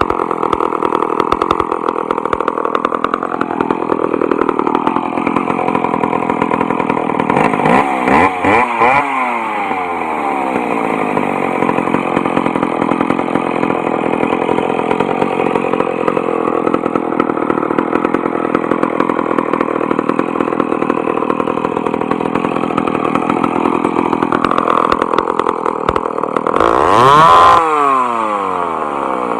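McCulloch Mac 10-10 Automatic two-stroke chainsaw engine idling steadily. It is revved up sharply and let fall back to idle twice, once about eight seconds in and again near the end.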